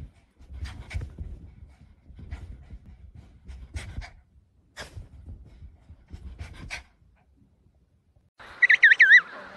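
Small long-haired dog, a papillon, panting and sniffing right at the phone in uneven bursts, with muffled bumps as it nuzzles against it. Near the end, after a short lull, come loud high chirps that wobble up and down in pitch.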